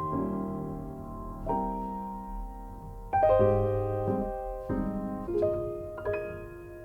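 Background piano music: slow, gentle chords struck about once a second and left to ring.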